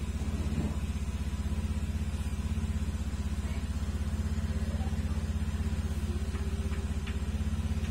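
Steady low drone of a running motor with a rapid, even pulse, unchanging throughout; a couple of faint ticks near the end.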